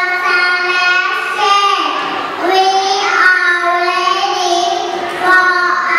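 A group of young children singing a song together in unison, in long held notes with a short break for breath about two seconds in and again about five seconds in.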